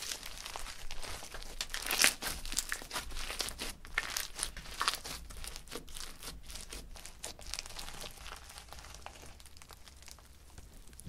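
Hands squishing and stretching crunchy slime packed with foam beads: a dense run of irregular crackles and pops, loudest about two seconds in and thinning out near the end.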